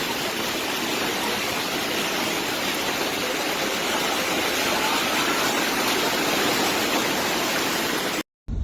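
Steady, even rush of heavy water from the downpour and flooding, which cuts off abruptly near the end.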